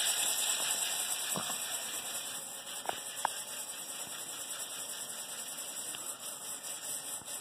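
Freshly roasted coffee beans being stirred in a stainless steel bowl to cool them, with a few faint light clicks over a steady hiss that fades during the first few seconds.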